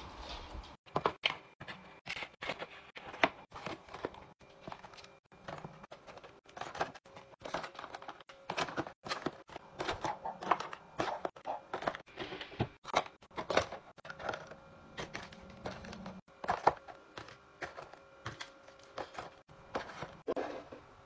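Plastic clamshell packs of wax melts clacking and tapping against each other and a plastic organiser tray as they are slotted into rows, a quick irregular run of knocks.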